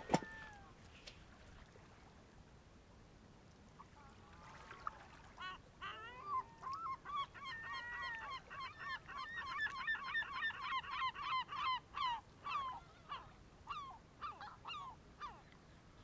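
A flock of geese honking: scattered calls about four seconds in build to a dense chorus of overlapping honks, then thin out to single calls near the end. A sharp knock right at the start.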